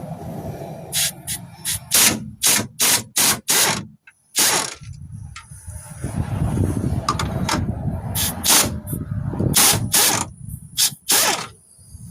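A ratchet wrench working a motor mount bolt loose in quick back-and-forth strokes, each stroke a short rasping click. There are two runs of strokes, one early and a longer-spaced one near the end.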